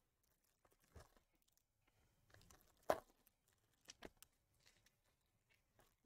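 Near silence with a few faint clicks and scrapes of trading cards being handled and slid through a pack, the loudest click about three seconds in.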